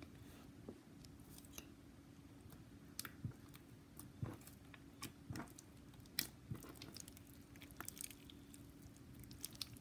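Faint, irregular squishes and sticky pops of white slime being kneaded and stretched by hand, with lemon juice dripped in to soften the overactivated slime.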